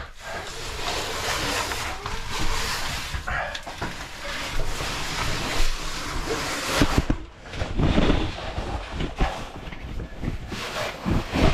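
Caving suit and gear scraping and rubbing against rock as a caver squeezes through a tight crawl, with scattered knocks and a few heavier thumps, the loudest about eight seconds in.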